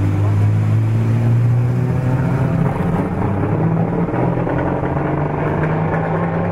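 Ferrari 225 S Berlinetta's V12 engine driving past and pulling away. Its pitch rises slowly under acceleration for the first two seconds or so, then holds steady.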